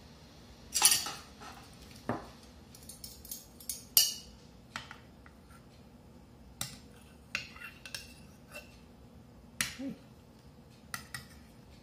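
A metal knife and spoon clinking and scraping against a glass serving dish as a slice of caramel flan is cut and lifted out. The sharp clinks are scattered, the loudest about a second in and at about four seconds.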